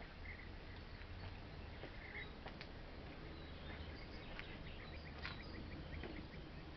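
Faint garden ambience: small birds chirping in short, quickly repeated high notes, a few times, over a low steady rumble, with a few faint clicks.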